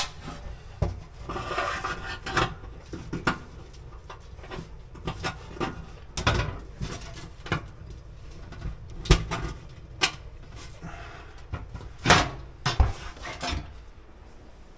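Scattered metallic clicks, knocks and scraping as an electric oven's bake element is worked loose by hand, its wire terminals pulled off; the sharpest knocks come about nine, ten and twelve seconds in.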